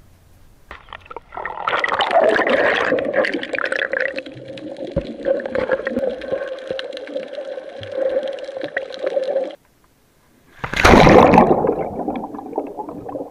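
Water gurgling and sloshing close around the microphone, with many small clicks and a steady hum underneath. The sound cuts out for about a second, then a louder rush of water follows.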